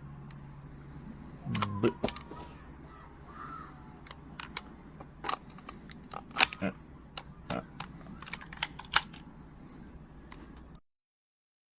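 Irregular sharp clicks and knocks from an airsoft M4A1 replica being handled and reloaded, a dozen or so separate strokes with the loudest near the middle and toward the end.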